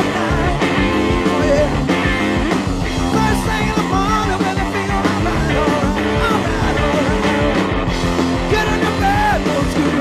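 Hard-rock band playing live: electric guitar, electric bass and a drum kit, with lead lines that bend up and down in pitch over a steady beat.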